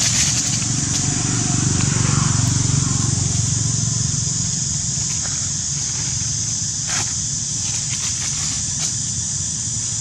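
Outdoor ambience: a steady high hiss over a low rumble, with a few short rustles or clicks, the clearest about seven seconds in.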